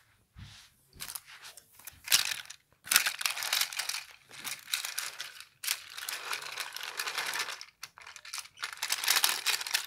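Handling noise: irregular crinkling and scraping as hands move plastic toy train coaches about on plastic track, with fingers rubbing close to the phone's microphone.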